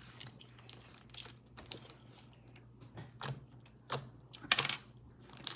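Homemade glue slime being squished and kneaded by hand, making irregular sticky clicks and pops, with a dense run of them about four and a half seconds in.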